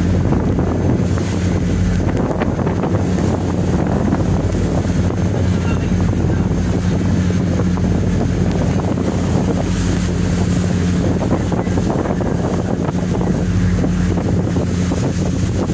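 A ferry's engines drone steadily in a low hum, while strong wind buffets the microphone and the sea washes against the hull.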